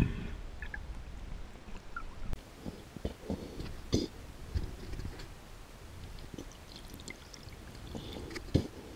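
Muffled underwater sound heard through a waterproof camera housing: irregular low knocks and bumps with scattered short clicks as a diver moves through the water with a speargun.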